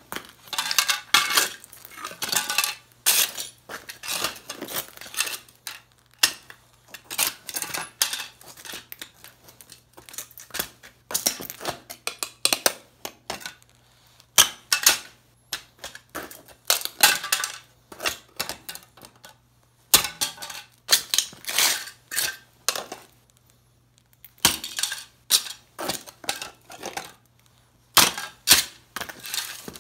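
Heavy boots stamping on and kicking the smashed remains of an old tube radio on a concrete floor: repeated crunching and cracking of cardboard and plastic with a clatter of small metal pieces, in bursts separated by short pauses.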